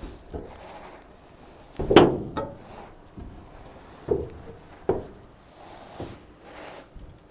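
A few irregular knocks and bumps of things being handled, the loudest about two seconds in, with two more around four and five seconds.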